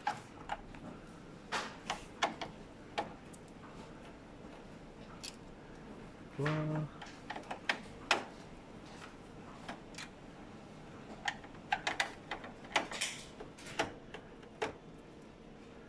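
Hand screwdriver loosening screws in a Fuji Xerox DocuPrint CM225 printer's frame: irregular small clicks and ticks as the bit works the screws, coming in clusters with gaps between.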